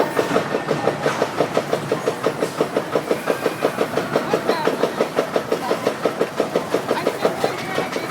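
Roller coaster lift chain clacking rapidly and evenly, about six clacks a second, with a short break near the end.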